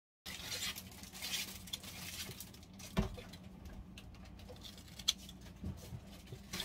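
Wet napa cabbage kimchi being lifted with metal tongs from a glass container onto a plate: soft squelching, crackling and dripping of the juicy leaves, with a couple of sharp clicks of the tongs against the dishes, about three and five seconds in.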